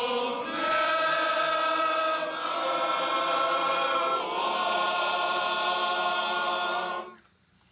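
A group of men singing together in sustained, held chords that change every couple of seconds, then cut off sharply about seven seconds in.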